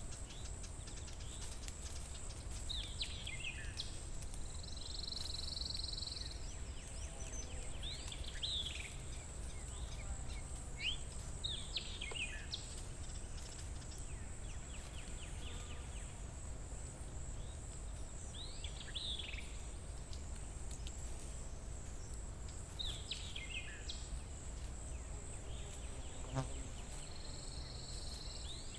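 Forest ambience: birds calling in short falling chirps every few seconds over a steady high-pitched insect drone and a low rumble.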